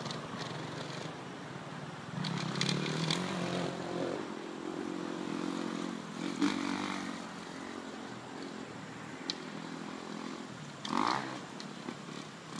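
Distant dirt bike engine on a motocross track, revving and easing off several times as the rider takes the circuit.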